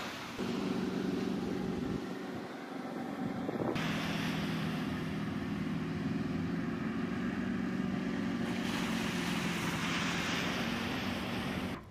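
Diesel engine of an AAV-7 amphibious assault vehicle running steadily with a low, even hum as the vehicle drives out of the surf, over a hiss of water and wind. The sound breaks a little before four seconds in and stops abruptly near the end.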